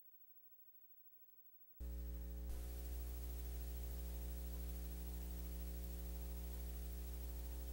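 Dead silence, then a little under two seconds in a steady low electrical hum with hiss cuts in and holds unchanged.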